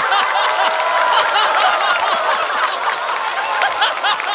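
Studio audience laughing with scattered clapping, many voices at once: the crowd's reaction to a stand-up punchline.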